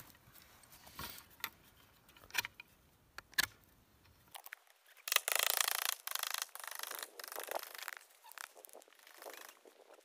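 Blade carving a wooden stick against a log: a few sharp knocks, then from about five seconds in a run of rasping shaving strokes on the wood that thin out toward the end.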